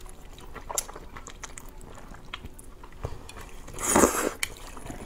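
Close-miked eating of wide flat noodles: soft chewing and small wet mouth clicks, then one loud slurp about four seconds in.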